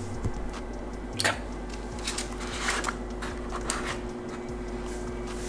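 Cardboard door of a dog advent calendar being pushed open and the treat packet inside handled, giving a few short rustles and crackles of cardboard and plastic packaging.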